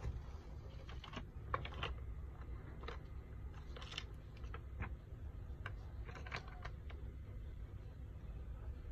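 Scattered light clicks and taps of fingers handling the opened laptop's internals and plastic chassis, a few a second at most, over a low steady hum.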